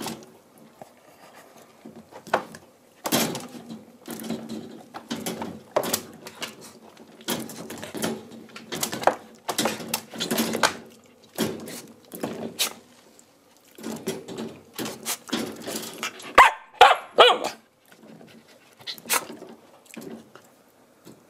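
A teething white Shiba Inu puppy barking in repeated short bursts, with clicks and rattles from the wire bars of its pen as it bites at them.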